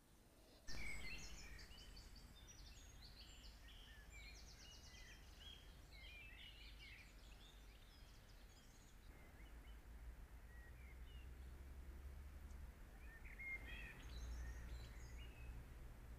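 Several songbirds chirping and trilling in dawn song, busy at first and then thinning out to scattered calls, over a faint low rumble.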